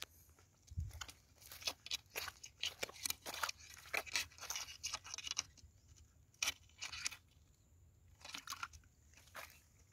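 Metal crab-hunting rods scraping and crunching against dry, crumbly mud as a crab burrow is probed and dug at: a run of short, irregular scrapes, thinning out after about seven seconds.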